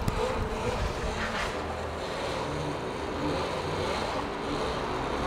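Cake Kalk electric motocross bike's electric motor running steadily under power as the bike is spun round in a tight circle (a death spin), with a short knock right at the start.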